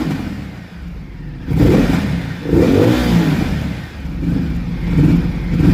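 Ducati Multistrada 950 S's L-twin engine revved in several short throttle blips, each rising and falling in pitch over its running note.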